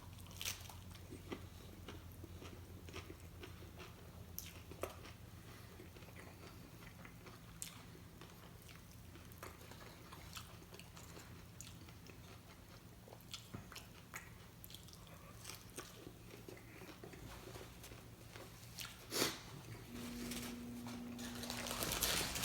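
Close-up eating of tacos: quiet chewing and biting with scattered soft crunches and mouth clicks over a low steady hum. Noisier rustling rises near the end.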